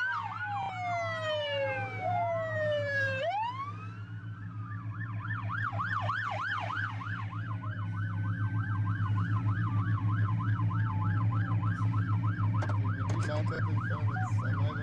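Police sirens: several wails falling in pitch during the first few seconds. From about five seconds in, a fast yelp warbles up and down about four times a second. A steady low hum runs beneath.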